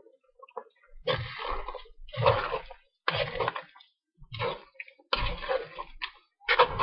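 Long metal spoon stirring through saucy chicken and vegetables in a wok, a wet stroke roughly once a second.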